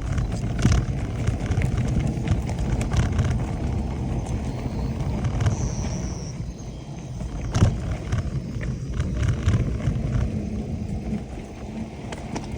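Mountain bike riding over a rough trail: a steady rumble of tyres and wind with frequent knocks and rattles from bumps, the sharpest about halfway through.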